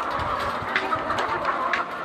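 A flock of laying hens clucking and calling all at once, a dense, steady chorus with scattered sharp clicks through it.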